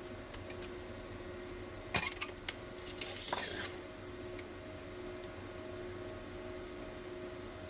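Small clicks and a clink about two seconds in, then a short scrape, as a small Phillips screwdriver and a tiny screw are handled while the last screw holding the laptop screen panel comes out. A faint steady hum lies underneath.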